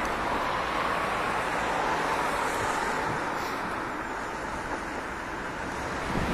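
Steady rush of wind over the microphone of a handlebar camera on a moving e-bike, mixed with car traffic running on the road alongside.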